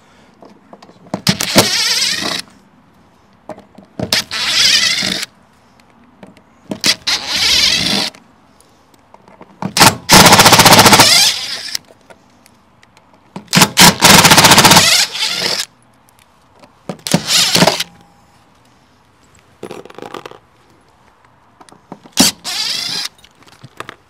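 A power driver running in short bursts as it backs screws out of an RV water heater's mounting frame: about eight runs of a second or two each, with short pauses between, the longest and loudest about ten seconds in.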